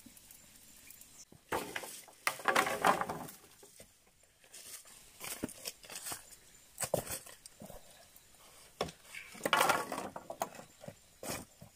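Dry twigs and brushwood rustling and snapping as they are handled and fed into a wood fire. There are two main bursts, about two seconds in and again near ten seconds, with scattered small clicks between them.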